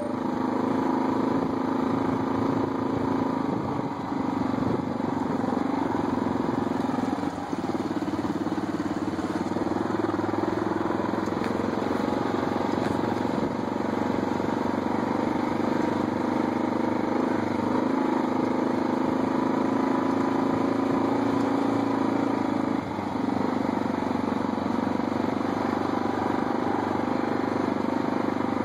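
ATV (quad) engine running steadily while riding along a dirt trail, easing off the throttle briefly a few times.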